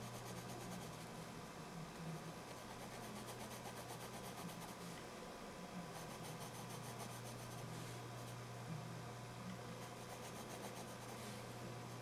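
Graphite pencil shading on drawing paper: faint, quick, repeated scratching strokes over a steady low hum.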